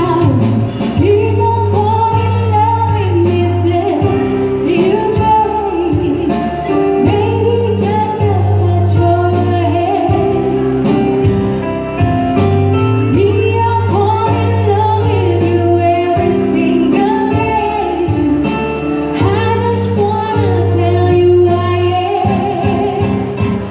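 A woman singing live into a microphone through PA speakers, accompanied by an organ tunggal setup: a single Korg arranger keyboard supplying sustained bass, chords and a steady programmed drum beat.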